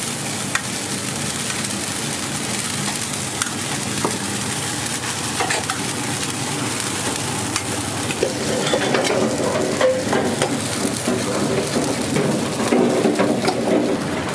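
Food sizzling and frying in a pan over a gas flame: a steady hiss with scattered sharp clicks of utensils against the pan. It grows somewhat louder, with a lower uneven hum, in the second half.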